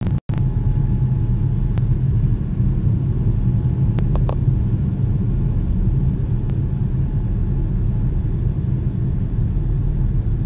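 Steady low rumble of the engines and airflow heard inside the cabin of a Boeing 787-9 in its climb after takeoff, with a faint steady whine through most of it and a few light clicks about four seconds in.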